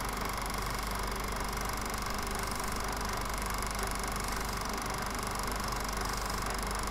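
Steady mechanical running noise with a low hum and hiss, typical of a film projector playing a silent reel.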